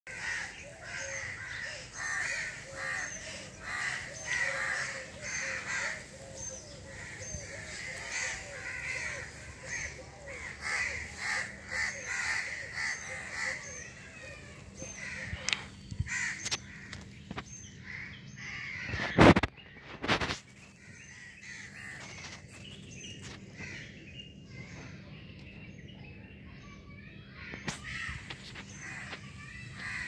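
Several birds calling over one another, a busy run of repeated calls and high chirps for about the first half that thins out later. A couple of loud knocks come about two-thirds of the way through.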